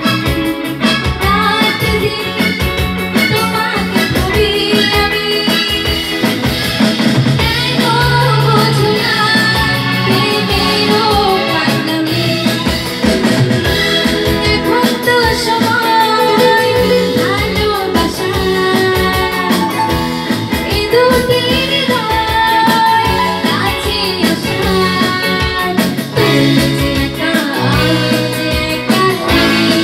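Live band playing a Bengali song: a woman sings into a microphone over keyboard, bass guitar and electronic drum pads (octapad) keeping a steady beat.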